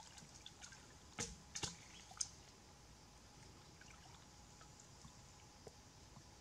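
Faint splashes and drips of shallow river water stirred by someone wading, a handful close together between about one and two seconds in, otherwise near silence.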